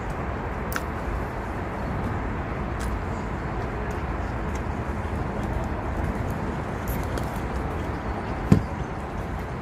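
Steady outdoor background rumble, with a single thump about eight and a half seconds in.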